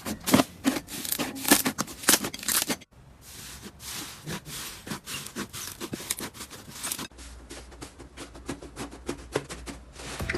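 Slime being squeezed and poked by hand, making a dense run of crackling, popping clicks. The sound changes abruptly about three and seven seconds in.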